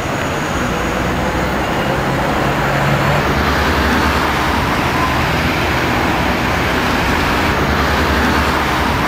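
Steady street traffic noise: the rush of passing road vehicles with a low engine hum that rises and falls.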